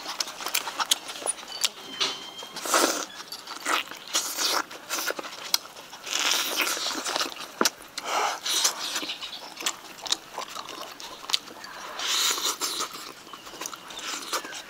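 Mouth sounds of a man eating a piece of cooked chicken up close: wet chewing and lip smacks as sharp clicks, with short sucking slurps every second or two as he pulls the meat off the bone.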